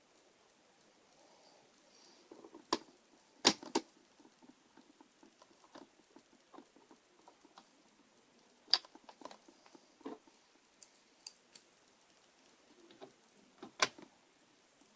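Scattered light clicks and taps of a screwdriver and screws on a laptop's plastic case as screws are driven back in by hand. Faint ticking and rustling run between a few sharper, louder taps.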